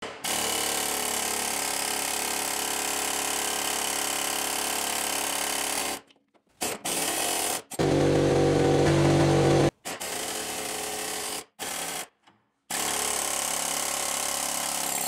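Husky pneumatic air hammer with a hammer-style bit, rapid-firing against the seized U-joint and collar of a Toyota 4Runner's lower intermediate steering shaft to drive it off the steering-rack spline. It runs in long steady runs that stop and start abruptly several times, with one louder, deeper-toned run about eight seconds in.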